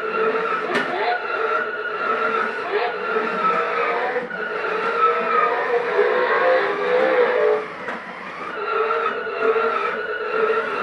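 Remote-control Batmobile Tumbler toy running, its speaker playing a continuous engine sound effect that wavers up and down in pitch, with a few sharp knocks.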